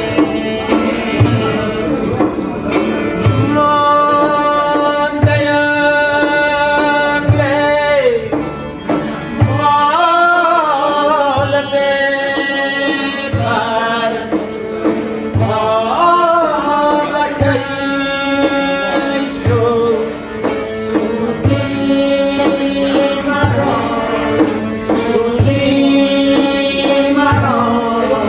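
Pamiri folk music played live: men singing over an accordion and a long-necked lute, with a large frame drum striking a slow, steady beat about every second and a quarter.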